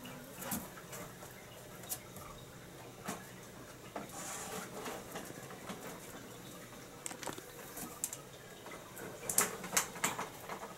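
Cardboard box rustling, scraping and tapping as a cat climbs into it, in scattered light clicks with a brief scrape about four seconds in and a busier run of louder taps near the end.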